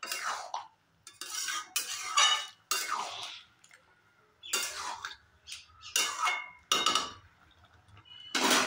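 Metal spatula scraping and stirring through thick, wet tomato chutney in a metal kadai, in a run of separate scrapes about one a second.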